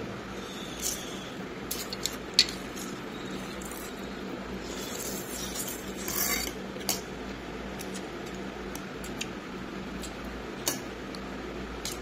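Eating sounds: a utensil clinking against a dish a handful of times, the loudest clink about two seconds in, and a short slurp of noodles about six seconds in.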